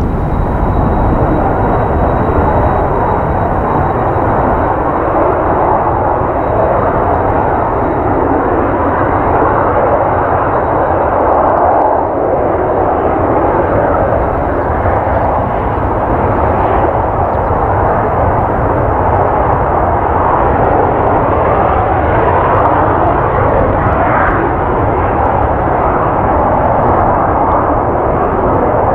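Kawasaki T-4 jet trainers' twin turbofan engines running at takeoff power, a loud steady jet roar as the jets roll down the runway and climb away. Strong wind buffets the microphone.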